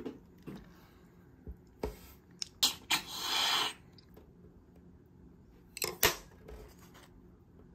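A string of sharp clicks and snips, with a crisp crackling noise lasting under a second about three seconds in and two louder clicks near six seconds: the sounds of food being handled and cut.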